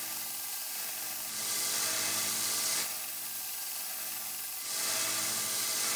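Belt sander running with a 400-grit belt, grinding dents out of a brass case: a steady motor hum under a rasping hiss that swells twice as the brass is worked on the belt.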